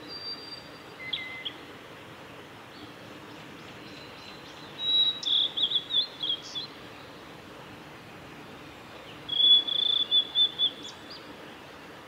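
Male blue-and-white flycatcher singing: a few thin, high notes at the start, then two loud song phrases, each a quick run of clear notes, about five and about nine and a half seconds in.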